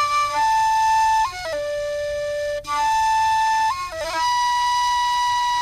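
Flute playing a slow melody of long held notes, each lasting about a second before it steps to the next pitch, with a brief click about two and a half seconds in.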